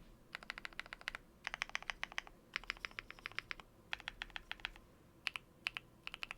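Typing on a QwertyKeys Neo65 mechanical keyboard with lubed KTT Matcha switches, tape-modded, with Cherry-profile keycaps: quick runs of keystrokes in short bursts with brief pauses between them.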